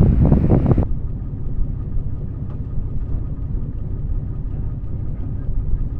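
Wind buffeting the microphone, cut off abruptly a little under a second in, then a steady low vehicle rumble.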